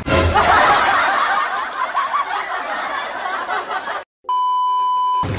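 Two women laughing hard together for about four seconds, then the sound cuts out suddenly and a steady electronic beep, an edited-in sound effect, plays for about a second.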